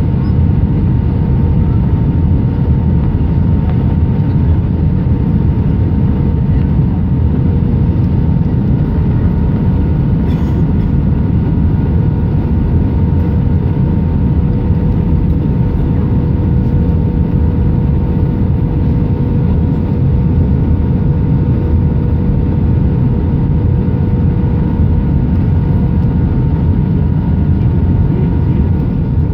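Cabin noise inside an Airbus A319 on final approach, heard by the window over the wing: a steady rumble of engines and airflow with a constant hum.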